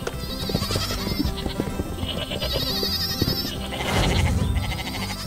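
Cartoon background music with repeated goat bleats, as wavering high cries twice. A brief burst of noise comes about four seconds in.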